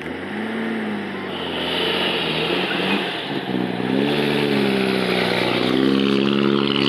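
EH Holden sedan's engine pulling away at low speed, growing louder as it passes close by. Revs rise at first, sag about three seconds in, then climb again and hold steady.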